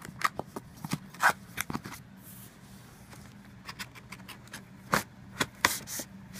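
Cardboard amplifier box being handled and opened: scattered scrapes, taps and rustles as a smaller inner box is taken out, the sharpest about a second in and again near the end.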